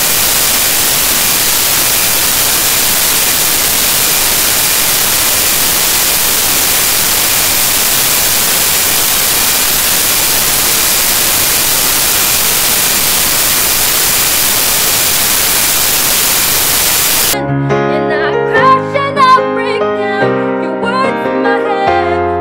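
Loud, steady hiss of digital static from a corrupted stretch of the recording, cutting off abruptly about seventeen seconds in. A woman's singing with piano accompaniment follows to the end.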